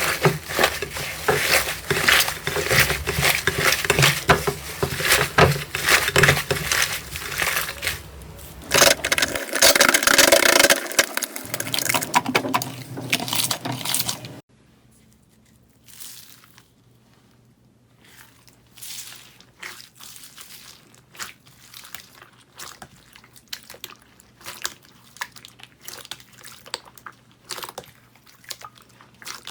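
Slime being worked by hand, giving dense crackling and popping clicks. About halfway through, the sound cuts to quieter, scattered clicks and squishes.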